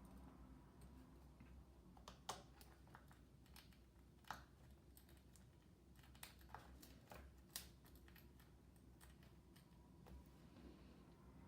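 Faint, scattered light clicks and taps of a precision screwdriver and small screws against a laptop's aluminium bottom case as the cover is screwed back on, a few of them sharper than the rest.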